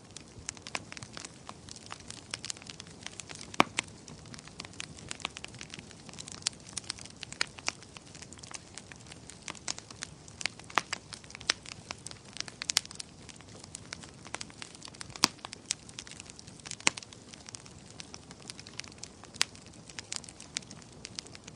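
Bonfire burning: a steady low rush of flames with frequent irregular sharp crackles and pops of burning wood.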